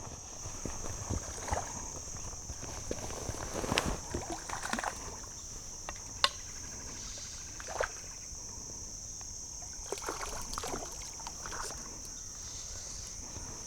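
River water sloshing and splashing irregularly, as if around a wader's legs, with a few sharp knocks. A steady high hiss runs underneath.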